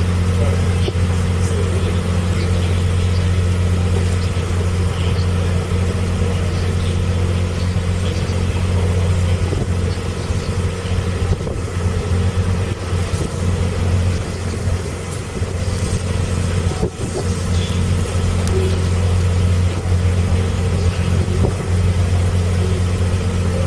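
Narrowboat engine running steadily, a low, even drone heard from on board the boat.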